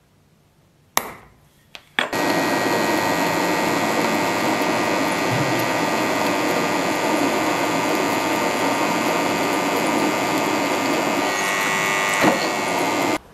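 A drill press boring a hole into a steel sword-pommel block with a twist drill, running steadily with a whine and cutting off abruptly near the end. Before it starts, a sharp metal tap about a second in and two more just before the drilling, from a hammer on a center punch marking the hole.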